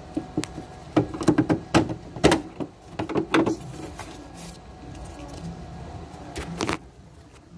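Irregular sharp clicks and knocks of a small pry tool and plastic engine-bay parts being worked and handled, bunched in the first half with a couple more near the end.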